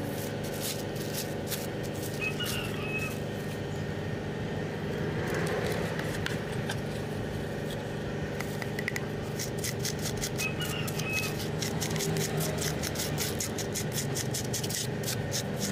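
A steady motor-like drone, with fast clicking and crackling in the second half as a spatula scrapes battery paste over a plastic sheet.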